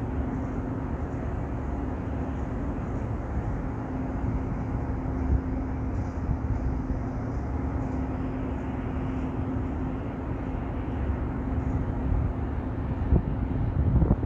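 Steady outdoor background rumble with a constant low hum running through it, and a few low bumps near the end.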